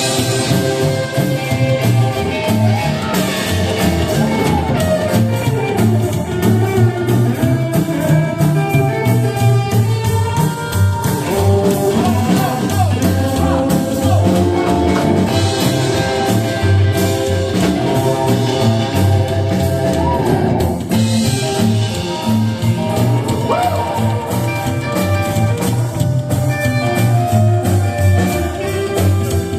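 Country band playing live, with singing over the full band.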